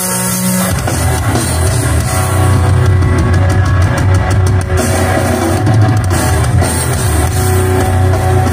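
Heavy metal band playing live at full volume, with distorted electric guitars, bass and drum kit. Under a second in, a sustained intro chord gives way as the whole band comes in.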